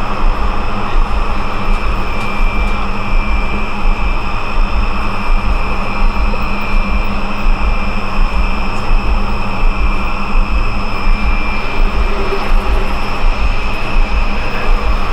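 Loud, continuous droning sound-art texture: a dense wash of noise over a throbbing low rumble, with a few steady high tones held throughout, like an engine or aircraft drone.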